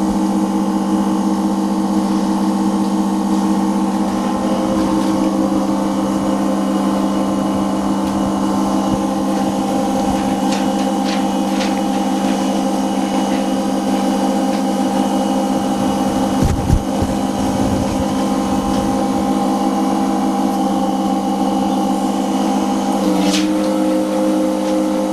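A laminating machine's pump motor running with a loud, steady hum. There are a few light clicks partway through, and the hum steps up in pitch near the end.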